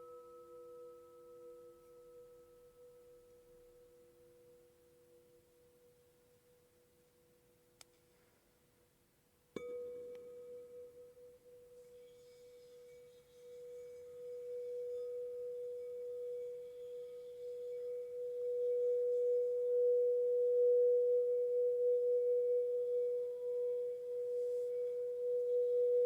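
Quartz crystal singing bowls: a pure ringing tone fades slowly away over the first nine seconds. A bowl is then struck, and its single steady hum swells louder and holds with a slight wobble.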